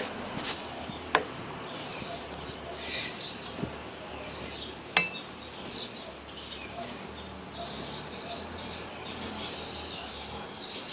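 Birds chirping in the background, with a few sharp metallic clicks from a hex key working the brake lever's pivot bolt.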